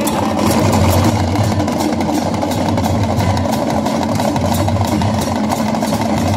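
A street procession crowd with hand drums beaten in a steady rhythm over a continuous low hum.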